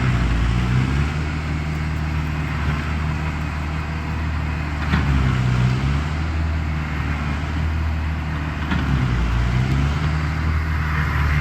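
Cat bulldozer's diesel engine running steadily under load while pushing against an oak tree, its pitch dipping and recovering a few times.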